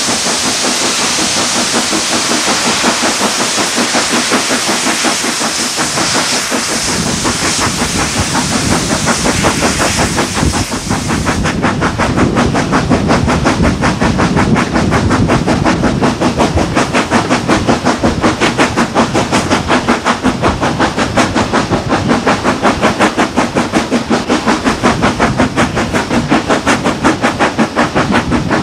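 Steam locomotive working hard at the head of the train: the thrash of its fast, regular exhaust beats. For the first ten seconds or so a loud hiss of steam covers it; about eleven seconds in the hiss stops and the beats come through sharp and clear.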